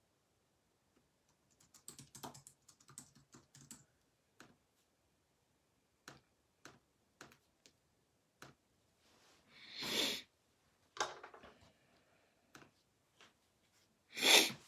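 Faint, irregular clicks and taps of typing on a computer keyboard. Two short, louder rushing noises come about ten seconds in and again near the end.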